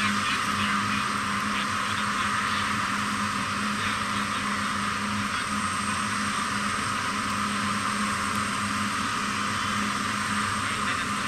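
Steady jet-turbine hiss from aircraft on the airport ramp, with a low hum that cuts in and out.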